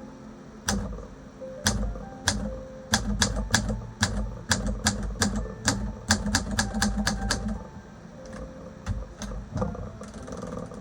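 Typing on a manual Olympia SM3 typewriter: sharp, irregular keystrokes, scattered at first, then a quick run of several strokes a second in the middle, thinning out again near the end.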